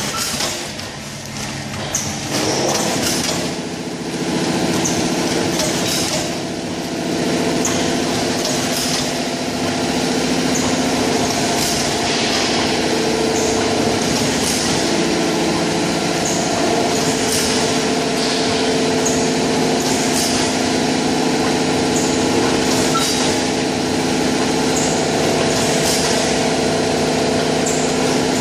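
Vertical form-fill-seal powder packing machine running: a steady motor hum with a short high click repeating about every 1.7 seconds.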